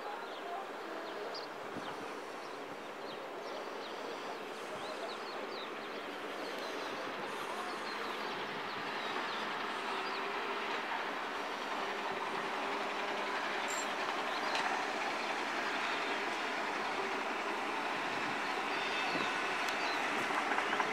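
Steady rushing of distant road traffic, slowly growing louder, with faint bird chirps in the first half.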